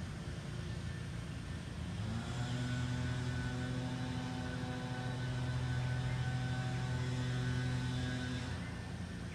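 Steady engine drone in the distance, growing louder about two seconds in and easing off near the end. A bird chirps faintly near the end.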